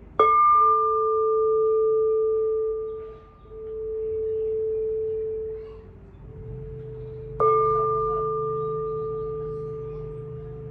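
Singing bowl struck twice with a padded mallet, the second strike about seven seconds in. Each strike leaves a long, steady ringing tone. After the first strike the tone wavers, swelling and fading twice before it dies away.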